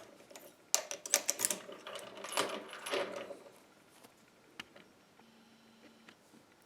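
Metal padlocks, carabiner and chain clinking and rattling as they are handled: a quick run of clicks and clanks lasting about two and a half seconds, starting just under a second in.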